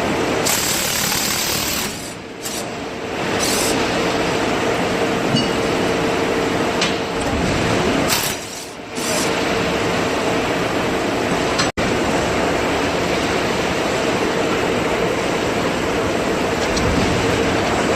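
Steady, loud machinery noise with a constant mid-pitched hum, dipping briefly twice.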